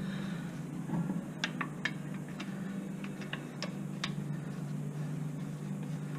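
Tools clicking and tapping against brake parts during a rear brake pad change: about half a dozen light, irregular ticks, most between one and four seconds in, over a steady low hum.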